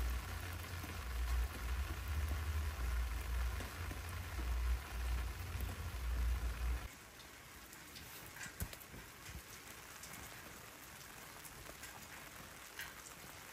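Steady rain falling, with a heavy low rumble under it that cuts off suddenly about seven seconds in; after that the rain is quieter, with separate drops ticking now and then.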